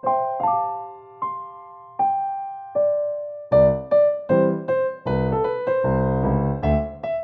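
Background music on a keyboard with a piano-like sound: a few sparse melody notes, joined about three and a half seconds in by fuller chords and bass notes in a regular rhythm.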